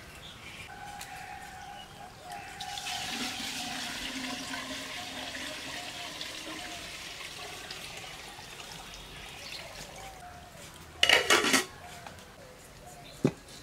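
Water poured from a plastic bucket into an aluminium cooking pot, splashing for several seconds. About eleven seconds in, a short loud metallic clatter, a metal lid being set on the pot.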